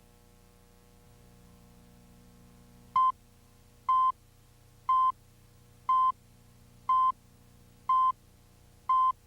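Short electronic beep at one pitch, repeating once a second, seven times, starting about three seconds in, over a faint low hum.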